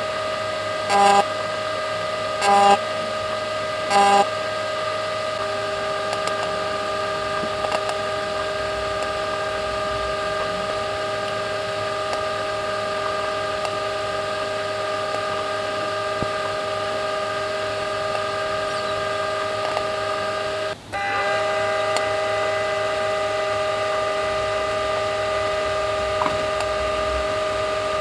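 Microwave oven running with a steady electric hum, a tin of ravioli inside. In the first few seconds it gives several short, louder buzzes about a second and a half apart, and about 21 seconds in the hum briefly cuts out and comes back at a slightly different pitch.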